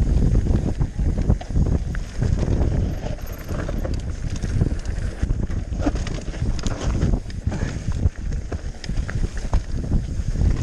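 Mountain bike riding down a rough trail: tyres over dirt and rocks, the bike rattling and knocking over bumps, with wind buffeting the microphone.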